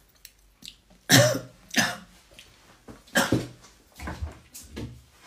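A woman coughing hard several times, in short separate bursts, the loudest about a second in and about three seconds in.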